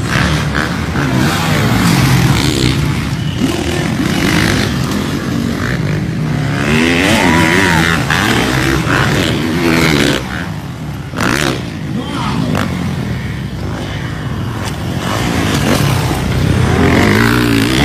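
Motocross dirt bike engines revving, their pitch rising and falling as the bikes accelerate and jump, with a few abrupt breaks in the sound around the middle.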